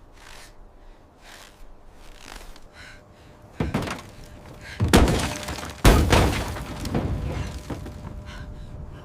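Faint soft knocks repeating for a few seconds, then three heavy thuds about a second apart, the last two trailing off in a long crashing rumble.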